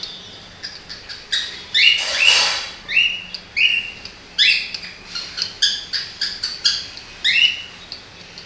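Cockatiel chirping: a run of about a dozen short calls that rise in pitch, with a louder, longer, harsher call about two seconds in.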